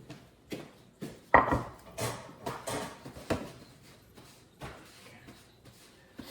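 A run of knocks and clatters from things being handled and set down in a kitchen, the loudest about a second and a half in, then fainter taps toward the end.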